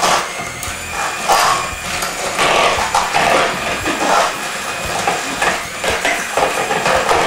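Electric hand mixer running with its beaters in a ceramic bowl of chopped tomatoes, churning and knocking against the bowl in uneven swells.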